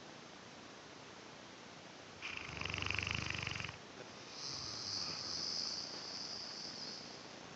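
Mastiff snoring in its sleep: one loud, pulsing snore of about a second and a half about two seconds in, then a softer, longer, hissing breath out.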